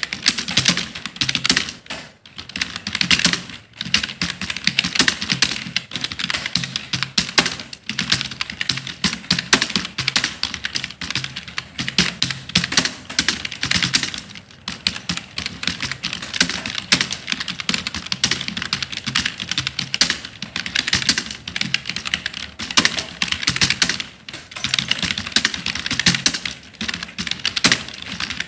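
Fast, continuous typing on a computer keyboard, a dense stream of key clicks with a few short pauses.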